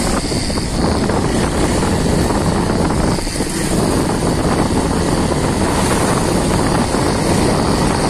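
Bajaj Pulsar 150 BS6's single-cylinder engine running steadily while the motorcycle is ridden at about 30–45 km/h, mixed with wind and road noise on the handlebar-mounted microphone.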